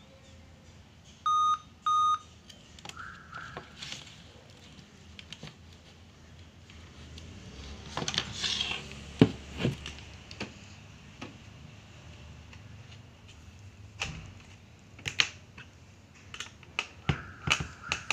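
Two short electronic beeps a little over a second in, then the laptop being handled and turned over on the bench, with scattered clicks and sharp knocks. The loudest knock comes about nine seconds in.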